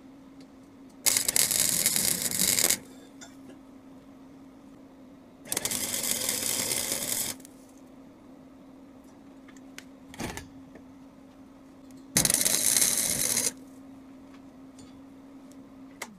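Wire-feed welder laying three short welds, each about one and a half to two seconds long, over a steady hum.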